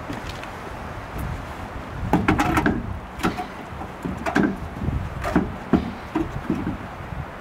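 A steel wheel being hung on a VW bus's brake drum and worked into place: a series of short, irregular knocks and scrapes of metal and rubber against the hub, starting about two seconds in.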